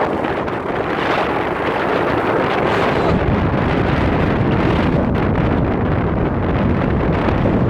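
Sea waves washing in a steady rush over a flooded beach, with wind rumbling on the microphone.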